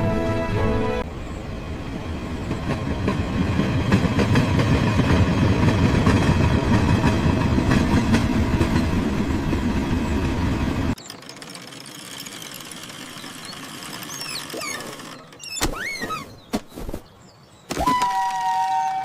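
Train running on track: a dense rumble with rapid clatter for about ten seconds that cuts off suddenly. Then quieter, with a few quick rising and falling squeals, and a steady horn of several held tones starting near the end.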